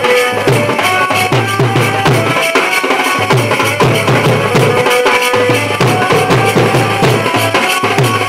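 Live folk band music for a nagin dance: a large bass drum and a side drum beaten in a quick, steady rhythm with metal hand cymbals clashing, under a held melody line.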